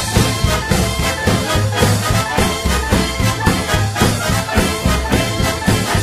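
Swing music with brass horns over a steady beat and a bass line.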